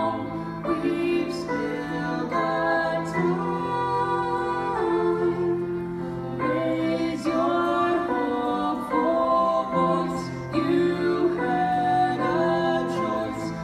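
Live acoustic performance of a slow ballad: voices singing together over finger-picked acoustic guitar, violin and piano.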